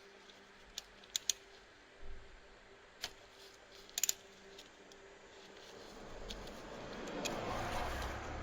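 A few sharp clicks and taps, like small tools or parts being picked up and set down, then a rustling noise that swells over the last couple of seconds.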